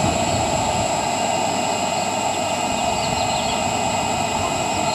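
A steady machine drone with a constant high whine, unchanging throughout.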